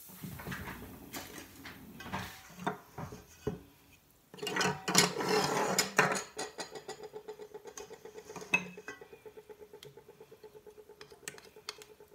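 Measuring cups clinking against a stainless steel bowl, a louder noisy stretch a little after four seconds in, then a silicone spatula stirring a liquid marinade in the steel bowl: a rhythmic scraping about four strokes a second, the bowl ringing faintly. The scraping is the sugar not yet dissolved in the marinade.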